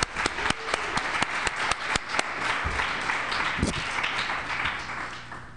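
Audience applauding, with many sharp individual claps, dying away near the end.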